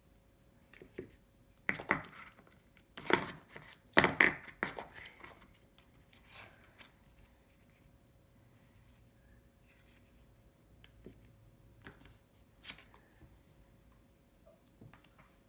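Hands handling and unpacking iPhone X accessories: plastic packaging and cardboard box clicking and rustling in a few sharp bursts in the first five seconds, then only scattered light taps.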